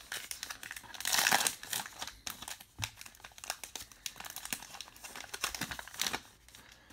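Wrapper of a 2019 Topps Heritage baseball card pack crinkling as it is torn open, loudest about a second in.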